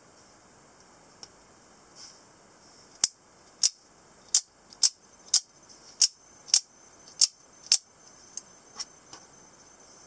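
A small double-edged out-the-front automatic knife is fired open and snapped shut again and again. It gives about nine sharp metallic snaps, roughly half a second apart, then a few fainter clicks.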